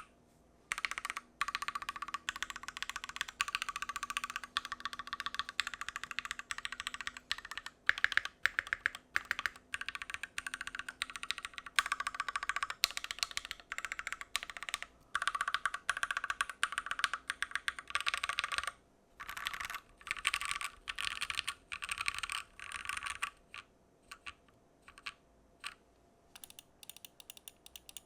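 Typing on a Keychron Q1 gasket-mounted aluminium mechanical keyboard: fast runs of keystrokes with brief pauses, thinning to scattered single key presses near the end.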